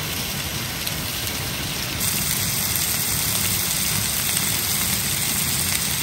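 Steady rushing water, an even hiss with no separate drops or knocks; about two seconds in it jumps a little louder and brighter.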